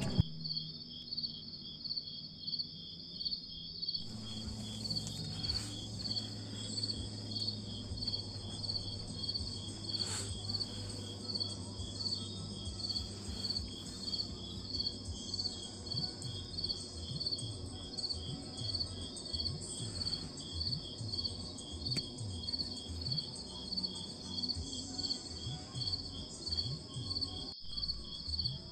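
Crickets chirping at night: two steady, evenly pulsing high chirrs at slightly different pitches.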